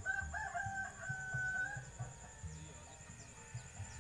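A rooster crowing once, about two seconds long, rising at the start and then held on one note.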